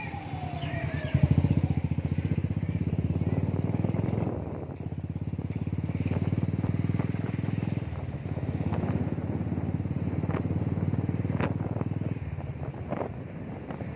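Motorcycle engine running under way with a rapid, even pulse. Its note dips briefly twice, about four and eight seconds in.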